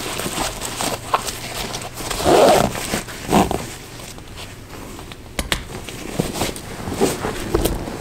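Hiking boots being put on and laced: rustling of laces, fabric and the boot's pull tab, with small clicks, and two brief louder sounds about two and a half and three and a half seconds in.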